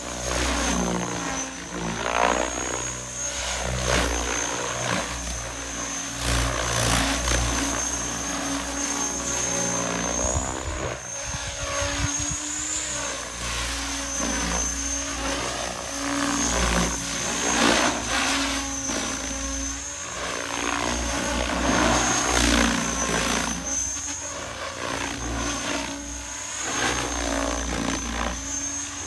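Mikado LOGO 480 XXtreme electric RC helicopter flying at low rotor speed: a steady high motor whine over the rotor blades, swelling and fading as it moves about.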